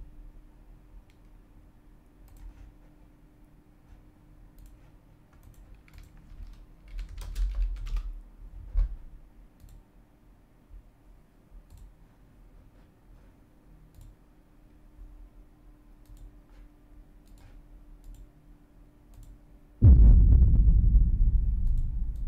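Faint clicks from a computer keyboard and mouse, scattered and at times in a quick cluster, over a low steady hum. Near the end a sudden loud low boom starts and dies away over about two seconds.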